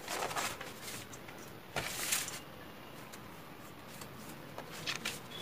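Sheet of drafting paper rustling and crinkling as it is unrolled and smoothed flat on a table, in a few short bursts with a light knock about two seconds in.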